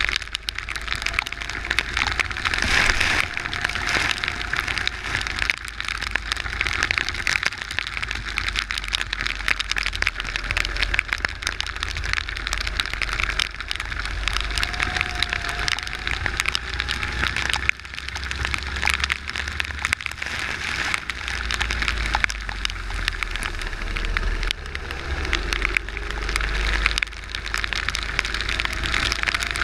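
Steady hiss of rain and wheel spray pelting a go-kart's onboard camera on a wet track, with wind rumbling on the microphone. A faint engine note rises and falls underneath.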